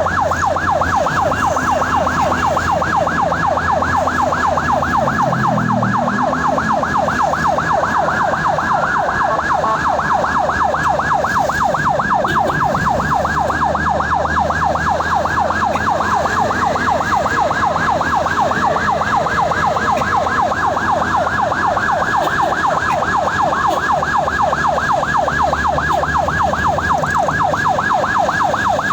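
Ambulance siren wailing in a rapid yelp, its pitch sweeping up and down many times a second without a break, over a low rumble of engine and road noise.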